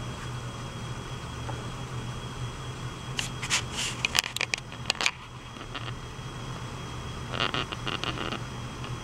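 Electric potter's wheel running with a steady low hum under a thrown clay pitcher. Two short runs of scraping clicks come about three seconds in and again near the end.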